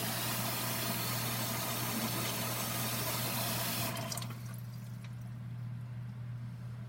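Water running hard from a kitchen tap into the sink, shut off suddenly about four seconds in. A steady low hum continues underneath.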